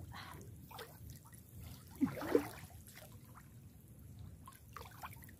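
Shallow water trickling and splashing softly as people wade through a flooded rice field, with a brief voice-like sound about two seconds in.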